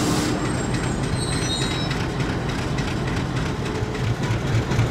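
Diesel locomotive running, a dense low rumble with faint rattling; near the end its engine throb grows stronger and pulses a few times a second.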